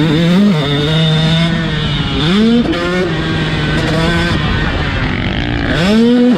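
KTM SX 125 single-cylinder two-stroke motocross bike running hard on the throttle, its engine note holding steady and then climbing sharply twice, about two seconds in and near the end, with wind rushing over the microphone.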